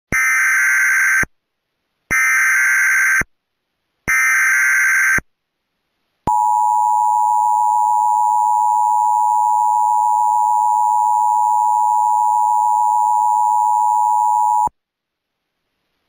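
Emergency Alert System header: three one-second bursts of SAME data tones about a second apart, then the two-tone attention signal (853 and 960 Hz sounded together) held steady for about eight seconds. The header announces a Required Monthly Test.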